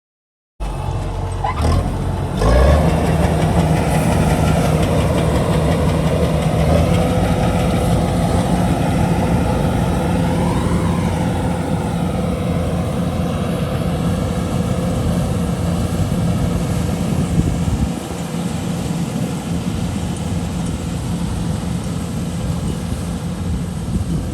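An engine running steadily with a constant hum, briefly rising and falling in pitch about ten seconds in, a little quieter from about eighteen seconds.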